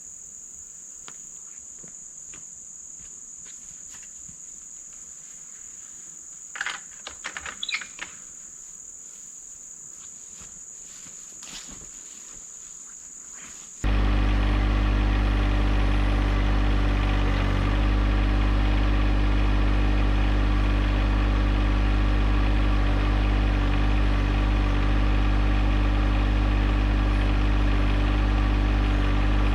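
Crickets or similar insects buzzing steadily, with a few short chirps about seven seconds in. About halfway through, a compact diesel tractor engine, the John Deere 1025R's small three-cylinder diesel, abruptly takes over, running steadily and much louder.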